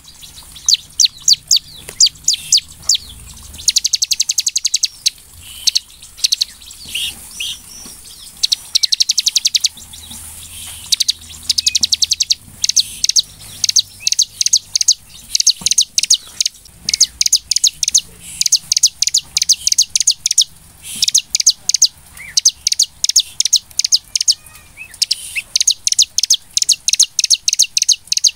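Bar-winged prinia (ciblek) singing in full, lively form: rapid trains of high, sharp chipping notes in bursts of a second or two, repeated with short pauses.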